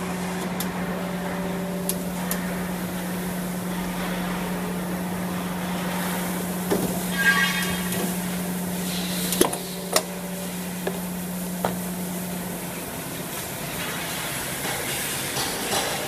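Vertical plastic injection molding machine working through a molding cycle with its mold clamped shut: a steady low hum that drops away about three-quarters of the way through, a brief whine around the middle, and a few sharp clicks and knocks just after it.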